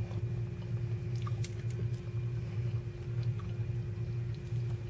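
Steady low hum of room tone, with a few faint scattered clicks.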